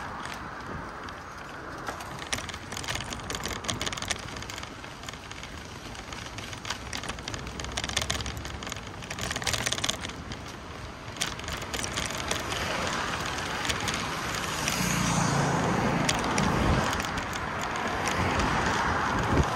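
Outdoor street ambience: a steady haze of road traffic noise with many small clicks and ticks, growing louder with a low rumble in the last several seconds.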